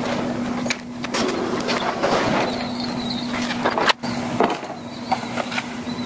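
Clicks, knocks and rattling of plastic parts as a car's front bumper cover is worked loose and pulled off, over a steady low hum.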